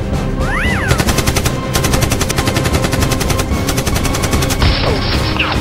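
Rapid automatic gunfire sound effect, a short run of shots about a second in and then a longer run of about three seconds, over background music.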